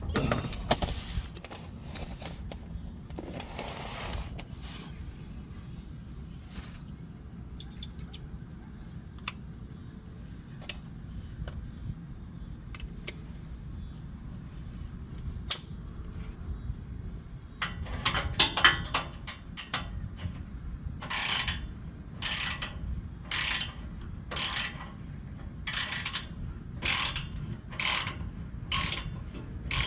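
A 3/8-inch ratchet with an extension clicking as it turns 12 mm hex bolts. There are scattered clicks and a short metallic clatter, then from about two-thirds of the way in a steady run of ratchet strokes, a little under one and a half a second. A steady low hum sits underneath.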